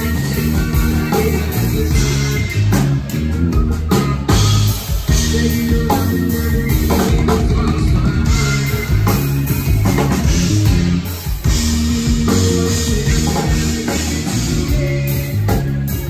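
Live rock band playing a song: electric guitar, bass guitar and drum kit, with the bass loudest.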